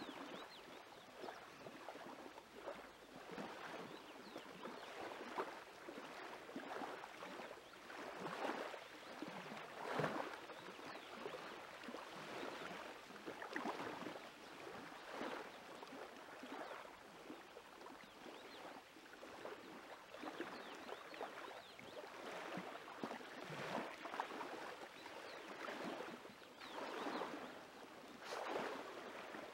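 Small waves lapping on a lakeshore: a soft, faint wash of water swelling and easing every second or two.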